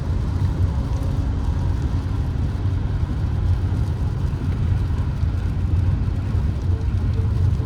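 Steady low rumble of a Peugeot 3008 on the move, heard from inside the cabin: road and engine noise.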